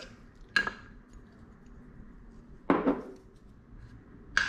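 Handling clicks and knocks from a small clear plastic tub of cotton swabs: three short knocks, the loudest and longest near the middle, the last a sharp click with a brief ring.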